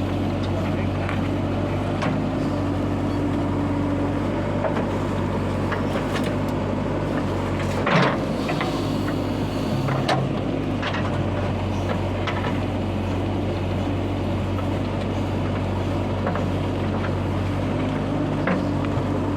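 Diesel machinery engines running steadily at work, with scattered knocks and a louder clank about eight seconds in.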